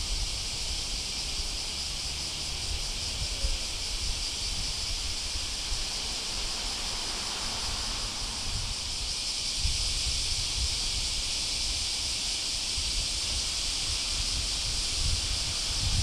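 Outdoor ambience: a steady high-pitched hiss, with wind buffeting the microphone in low gusts that come and go.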